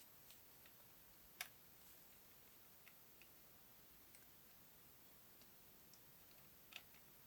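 Faint, scattered small clicks and taps at irregular intervals, typical of small hard parts of a diecast model car being handled; the sharpest comes about a second and a half in and another near the end.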